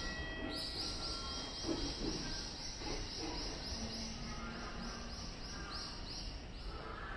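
A cicada calling in a rapid, even series of high chirps, about four a second, over a steady low station hum.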